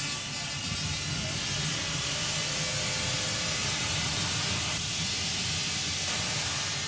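Basketball arena crowd making a steady, hissing din as an away player shoots free throws in a tight finish.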